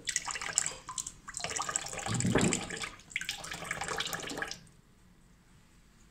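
Kitchen tap running into a cup and metal pot in a stainless steel sink, the splashing changing in strength as the stream moves. It stops about four and a half seconds in as the tap is turned off.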